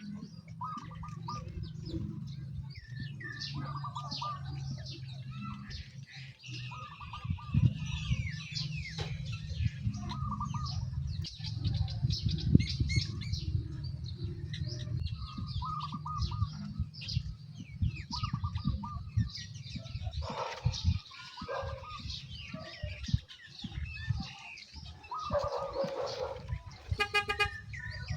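Small birds chirping over and over, above a steady low drone with scattered small knocks. A brief horn-like toot sounds near the end.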